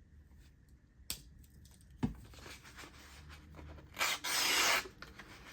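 Victorinox Swiss Army knife blade being drawn through material in an edge test, giving one loud rasping slice near the end. A light knock from the tool being handled comes about two seconds in.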